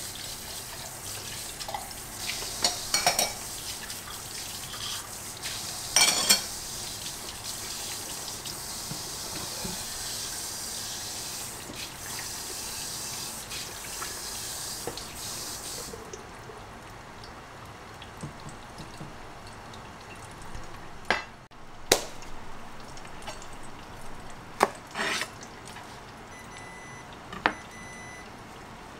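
Kitchen tap running into the sink while hands rinse a glass and utensils, with a few clinks; the water shuts off about halfway through. After that, a handful of sharp knocks as a kitchen knife and a wooden cutting board are handled on the counter.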